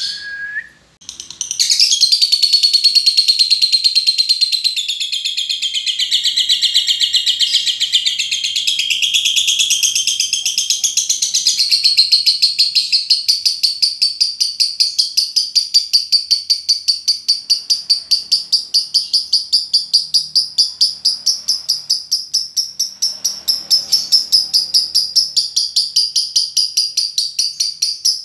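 Lovebird singing a long, unbroken ngekek chatter, high-pitched and rapid. It starts about a second and a half in after a short chirp, and from about halfway on settles into a fast, even rhythm of repeated kek notes.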